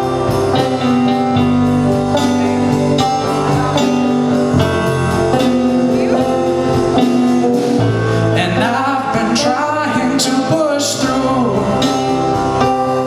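A slow song played by a band on guitar, keyboard, bass and drums, holding sustained chords between sung lines. About two thirds of the way in, a lead line bends up and down in pitch, with cymbal crashes around it.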